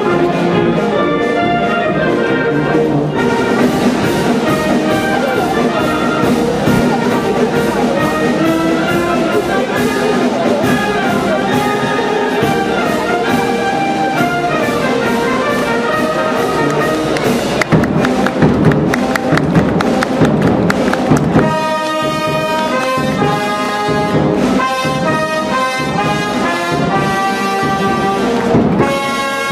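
Italian concert wind band playing, with brass to the fore: standing soloists on trumpet and other brass over the full band. A steady beat sets in about four seconds in, the playing swells and thickens a little past the halfway point, then thins out.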